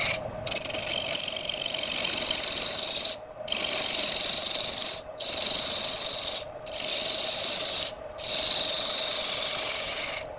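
Wood lathe running, with a tool or abrasive rubbing on the spinning wood in long strokes that break off briefly about five times. A steady hum sounds underneath.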